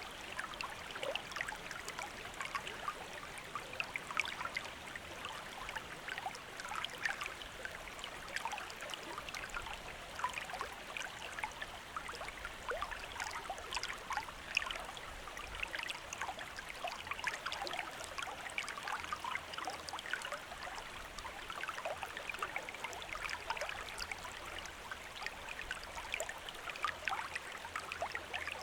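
A shallow stream running steadily, water babbling and trickling over stones with many small bright splashes.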